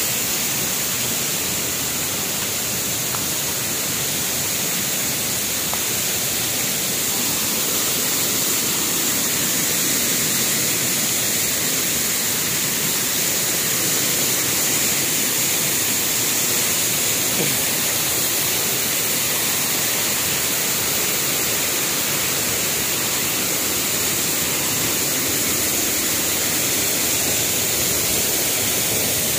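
Waterfall rushing: water pouring steadily down a rocky cascade, an unbroken hiss without let-up.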